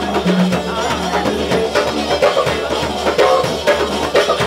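Live band music: a didgeridoo drone underneath a fast hand-drum rhythm, with a melodic line played over them.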